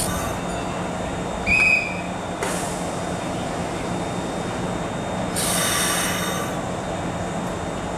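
Kintetsu 2800 series electric train standing at the platform, its equipment giving a steady low hum. A short high beep comes about a second and a half in, and a hiss lasting under a second comes a little past halfway.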